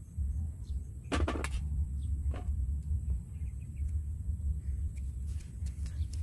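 A small knife scraping and cutting the skin of a young green mango, a few short scrapes and clicks, the loudest cluster about a second in, over a steady low rumble.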